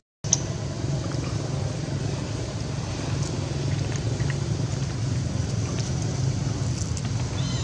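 Steady low rumble with a few faint clicks, after a short dropout at the very start.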